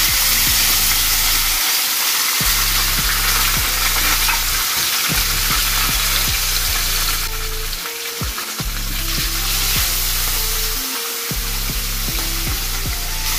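Fish pieces frying in hot cooking oil in a wok, a loud, steady sizzle.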